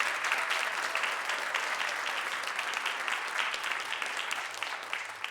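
Congregation applauding in a church sanctuary, a steady round of many hands clapping that starts to die away near the end.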